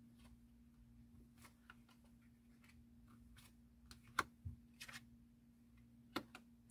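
Faint taps and slides of tarot cards being turned over and laid down on a cloth-covered table, about half a dozen light clicks, the sharpest about four seconds in.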